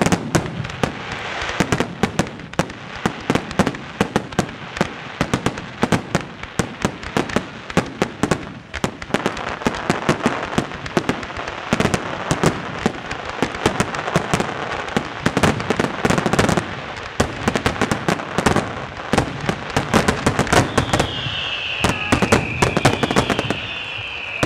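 Fireworks display at full barrage: a rapid, dense string of aerial shell bursts, several a second, over a continuous crackle. A high whistle falling in pitch comes in near the end.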